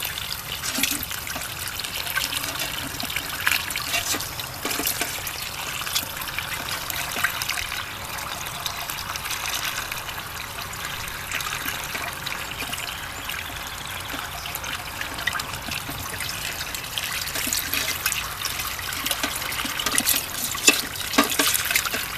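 Water from a garden hose running through a small gold centrifuge and trickling out of its spout into a gold pan, rinsing fine gold out of the machine's base trap. A few light clicks and knocks come near the end.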